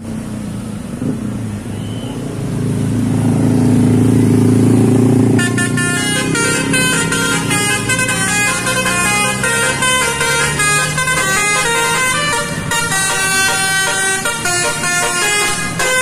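Engine rumble of approaching traffic swelling, then about five seconds in a bus's basuri musical air horn starts playing a quick melody of short changing notes, which goes on without a break.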